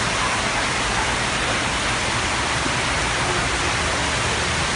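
Intense rain pouring down steadily, an even hiss of heavy rainfall on a flooded street and grass.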